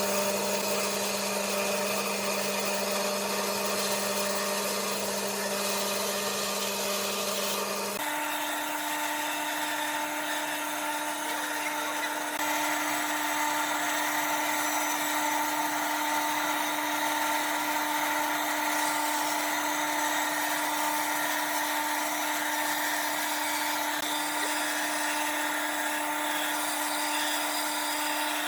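An electric power tool's motor running steadily at a constant pitch. About eight seconds in, the pitch steps up abruptly to a higher steady hum, which then holds.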